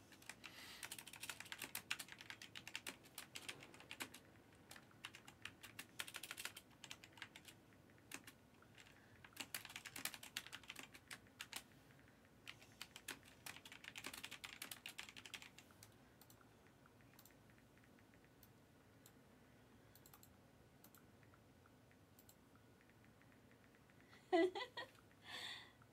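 Faint typing: quick runs of small clicks, thinning out to scattered clicks after about 16 seconds.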